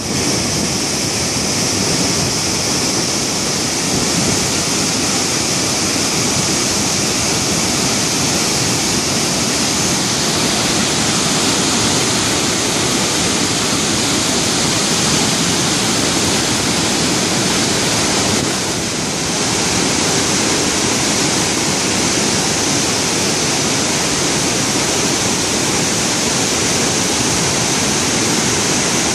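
Saltos del Monday waterfall in heavy flow: a large volume of brown floodwater plunging over rock ledges into a misty gorge, making a loud, steady rushing noise that dips only briefly about two-thirds of the way through.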